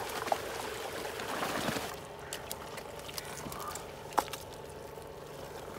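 Shallow muddy pond water sloshing and splashing as people wade through it, then quieter steps in wet mud with a few sharp clicks, the loudest about four seconds in. A faint steady hum runs underneath.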